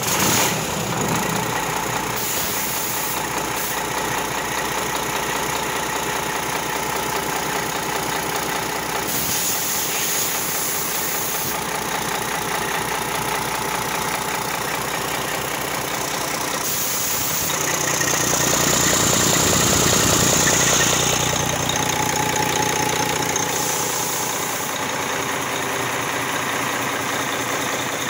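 1998 Cummins ISM inline-six diesel engine running steadily at idle on a test stand during a test run. It grows louder for a few seconds about two-thirds of the way through.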